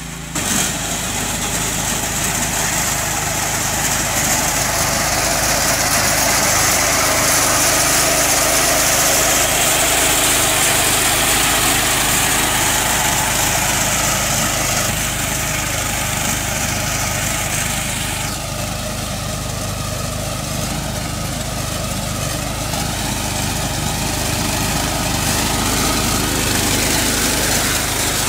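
Kisan Kraft KK 1201P walk-behind paddy reaper's 5.7 HP four-stroke petrol engine running steadily as the machine cuts rice.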